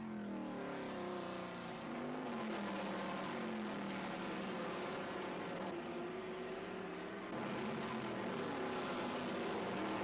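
A pack of American V8 race cars, mostly Chevrolet Camaros, running hard on track. Several engines are heard at once, their pitch falling and rising as the cars shift and pass.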